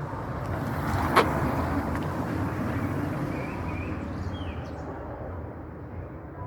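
A road vehicle passing close by, its rumble swelling over the first few seconds and then slowly fading. A single sharp click about a second in.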